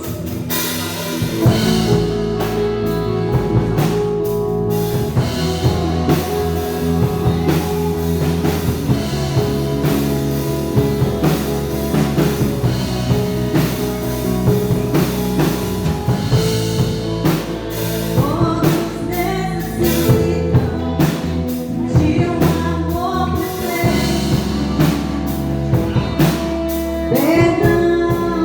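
Live worship music: a band with drum kit, bass and guitar playing under singing.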